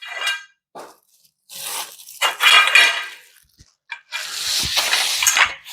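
Plastic wrapping crinkling and tearing in three bursts as steel bed-frame pieces are unwrapped, with light clinks of the metal parts.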